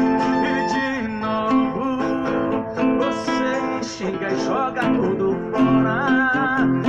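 Acoustic guitar music in an instrumental passage of a sertanejo song between sung lines, with a brief wavering vocal line about six seconds in.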